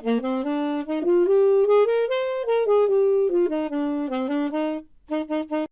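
A solo saxophone plays a short jazzy phrase of held notes, climbing and then stepping back down, and ends after a brief pause with three short repeated notes.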